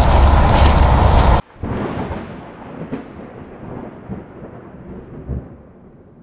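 Loud wind buffeting and rustling on a body-worn camera as the officer walks across grass, cut off abruptly about a second and a half in. Then a thunder sound effect rumbles and slowly fades, with a sharp crack about three seconds in.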